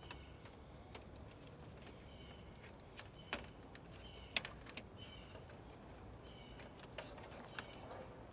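A few light, sharp clicks and knocks of a graphics card and the metal computer case being handled, over a faint steady background.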